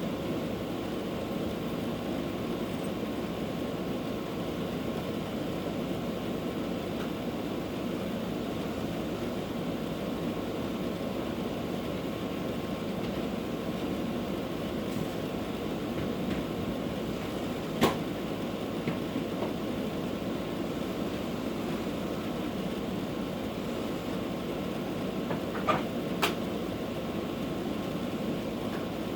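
Vacuum cleaner running steadily, its motor a constant drone with a faint whine, broken by a few sharp clicks and knocks as it works over the floor.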